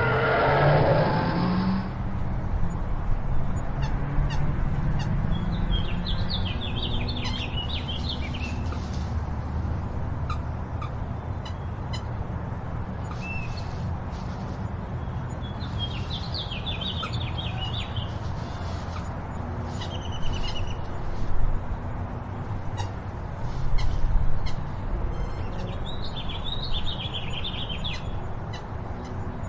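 Dubbed-in high, rapid squeaky chirps in three bursts of a couple of seconds each, spaced about ten seconds apart, over a steady low outdoor ambience rumble. There are a couple of louder low bumps in the second half.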